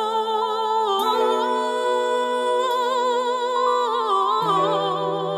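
Music: a wordless vocal melody in long held notes with vibrato over sustained low chords. The low note changes about one second in and again near the end.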